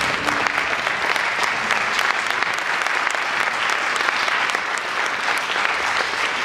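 Audience applauding in a concert hall: a dense, steady clapping of many hands.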